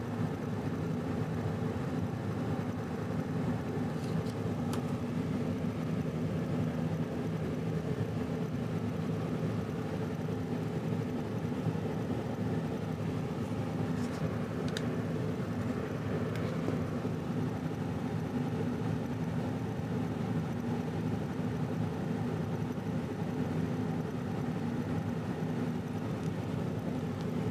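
A steady low mechanical hum, with a few faint clicks around four seconds in and again around fourteen seconds in.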